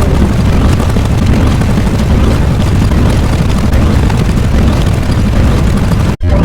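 Loud, continuous deep rumbling roar of an explosion sound effect, cutting out for an instant about six seconds in and resuming at once.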